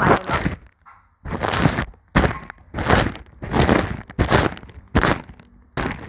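Brush strokes on a microphone's foam windscreen, heard very close: a run of rustling, scratching sweeps, a little more than one a second, each cut off by a short gap.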